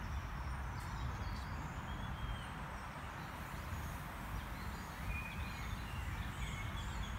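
Outdoor ambience: a steady low rumble with small birds chirping now and then, a few short calls about two, five and six seconds in.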